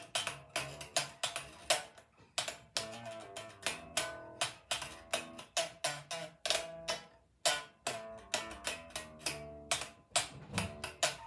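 Yamaha RBX375 five-string electric bass played slap-style without an amplifier: a quick rhythmic run of sharp slaps and pops on the bare strings, over low notes.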